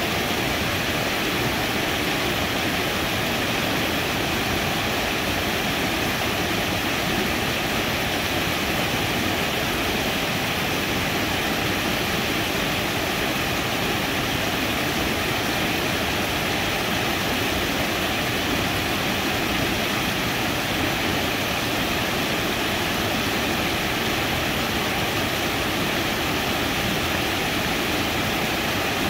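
Small waterfall: a stream cascading over a rock ledge into a pool, making a steady, even rush of water.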